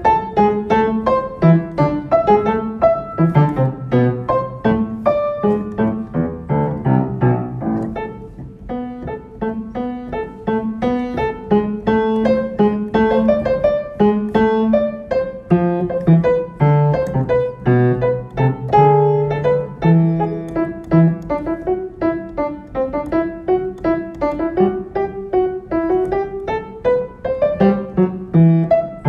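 Solo piano playing a prelude: a steady flow of notes over a moving bass line, with a quieter, thinner passage about eight seconds in before the full texture returns.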